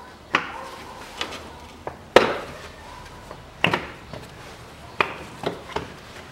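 Mercedes-Benz GLA 200's plastic engine cover being pulled up and off its mounts: a series of sharp knocks and pops as it comes free, the loudest a little past two seconds in.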